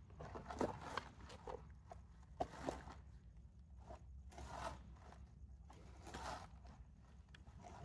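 Faint handling sounds of fishing gear at a bucket: soft rustling and scattered light clicks and knocks over a low steady background rumble.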